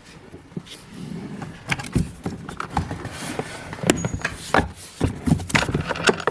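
Plastic clips being popped out of a car door panel and the panel's parts handled: a run of irregular sharp clicks and knocks with rustling between them.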